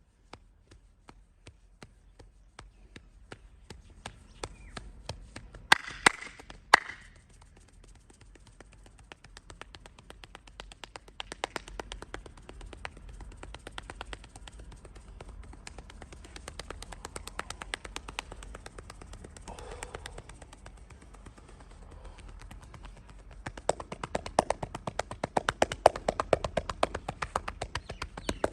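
Hands rapidly tapping and chopping on a person's head and back during a percussive massage, a quick run of sharp strokes. Three much louder sharp snaps come close together about six seconds in, and the strokes grow faster and louder over the last five seconds.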